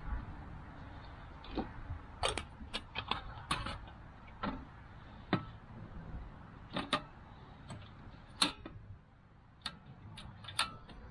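Sharp clicks and clacks, many single ones at uneven intervals, from handling a portable cassette-type gas stove: the gas canister being fitted, its compartment cover pressed shut and the control knob turned.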